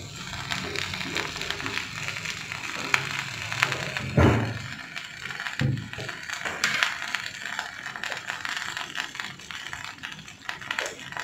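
Kitchen clatter at a gas stovetop: light clicks and taps of steel vessels and spoons, with two heavier thumps about four and five and a half seconds in.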